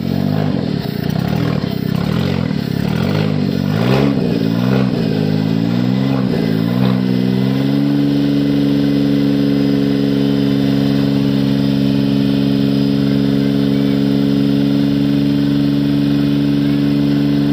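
Maruti Suzuki Alto 800's three-cylinder petrol engine running after a piston and ring rebuild. Its speed rises and falls for about the first seven seconds, then settles to a steady idle.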